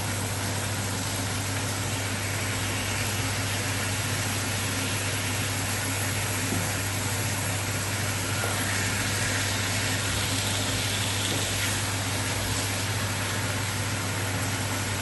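Marinated chicken thighs sizzling steadily in hot oil on a grill skillet, over a constant low hum.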